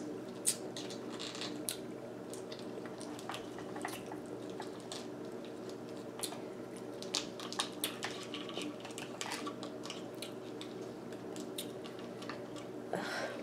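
Cooked lobster claw shell being cracked and picked apart by hand: scattered small cracks and clicks.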